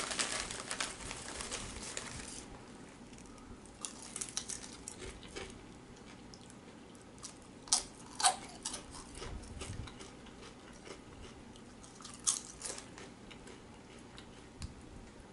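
Crinkling of a Lay's potato-chip bag as a hand reaches in, then crunching bites and chewing of a potato chip. The sharpest crunches come a little before halfway and again about four-fifths through.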